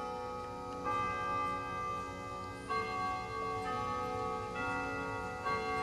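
A slow melody of long ringing notes, each held until the next, with a new note setting in about every one to two seconds.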